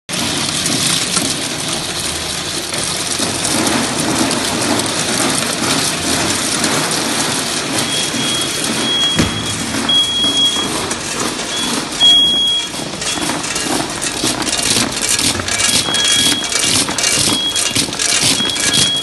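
Cap loader running: a steady clatter of plastic bottle caps rattling through its stainless-steel hopper and elevator chute. A thin high whine comes and goes from about eight seconds in, and sharper clicks of caps tumbling grow denser near the end.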